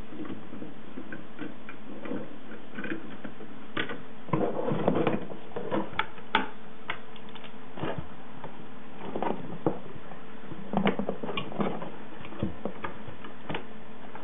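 CPU cooler's push-pin fasteners being pressed down into an LGA 775 motherboard: scattered sharp clicks and knocks with handling noise as the pins snap into place.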